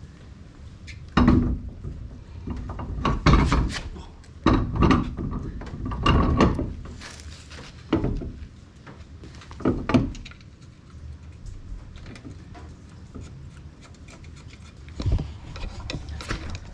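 Car wheel and tyre being handled and hung on the hub: a series of dull thuds and knocks with some rubbing, several in the first ten seconds and one more near the end.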